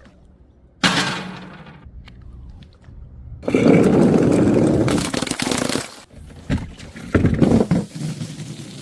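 Glass bottles hitting stairs and breaking. There is a sharp crash about a second in that rings on briefly, then a longer stretch of smashing and clattering glass from the middle on, and a few more crashes near the end.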